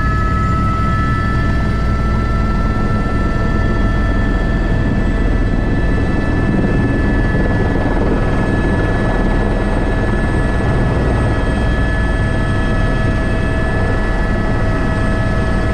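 Airbus H125 (AS350 B3) helicopter in flight, heard from the cockpit: its single turboshaft engine and gearbox whine as several steady high tones over the constant low beat of the rotor. A high tone fades out a few seconds in, while a lower one grows stronger in the second half.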